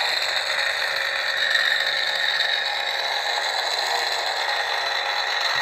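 Converted Kylo Ren replica lightsaber (Hasbro Force FX hilt) playing its unstable-blade sound track through its built-in speaker: a steady crackling hum.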